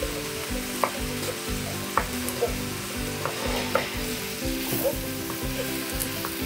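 Fried rice with vegetables and chickpeas sizzling steadily in a nonstick pan on high heat while a wooden spatula stirs and scrapes through it. A few sharp clicks come as the spatula knocks the pan.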